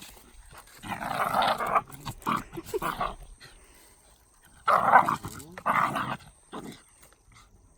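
Shiba Inu dogs play-fighting, growling in rough bursts, with two loud spells, one about a second in and another about five seconds in.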